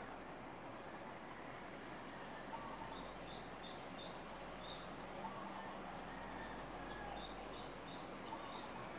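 Steady high-pitched insect chorus, with a bird giving short runs of chirps about three seconds in and again near the end.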